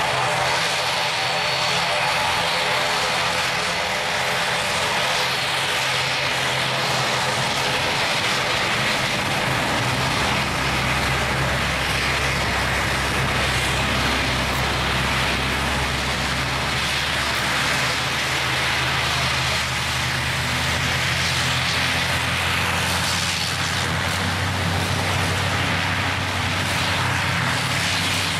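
ATR 72-600's twin Pratt & Whitney PW127M turboprops and propellers running at taxi power: a steady propeller drone over a hiss, with a deeper hum that grows stronger about a third of the way in.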